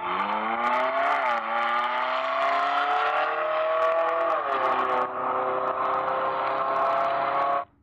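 Race car engine sound revving. Its pitch climbs for about four seconds, drops back, then holds steady before cutting off abruptly near the end.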